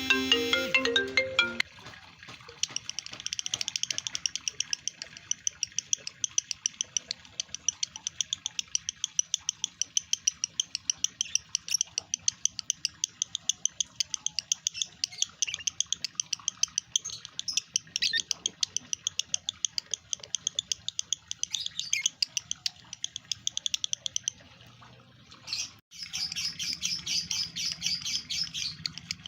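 A male lovebird in breeding condition chattering in a long, fast run of high chirps. It breaks off briefly after about 24 seconds, then comes back louder and denser. A short ringtone-like chiming tune ends about two seconds in.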